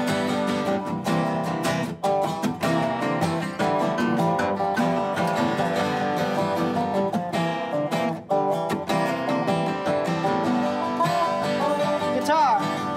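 Several acoustic guitars strumming and picking an instrumental passage of a country-folk song.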